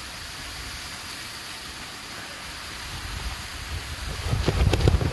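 Steady rain hissing on the flysheet of a Vango Banshee Pro 200 tent. About four seconds in, a gust of wind hits, bringing a loud rumble on the microphone and irregular flapping of the tent fabric.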